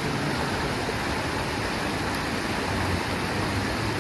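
Mountain stream rushing over rocks, a steady rush of water.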